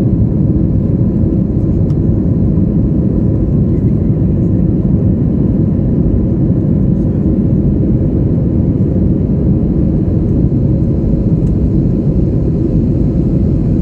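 Steady low roar of an Airbus A320's engines and rushing air, heard inside the passenger cabin in flight shortly after takeoff, with a faint steady hum over it.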